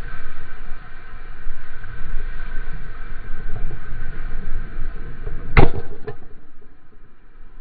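Whitewater and wind rushing past a board-mounted camera as the surfboard rides a breaking wave, muffled and rumbling. Two sharp knocks about half a second apart come about three-quarters of the way through, the first the loudest, and the rush eases off after them.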